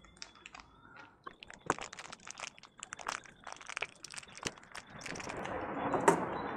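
Faint, irregular small clicks and crinkles from handling small baitcasting-reel parts, becoming a steadier rustle about five seconds in.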